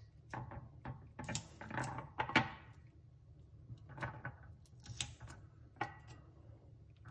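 Gloved hands handling small glass jars with metal lids on aluminium foil: scattered light clicks and taps with brief rustling and crinkling as tape is pressed over the lid holes, over a faint steady low hum.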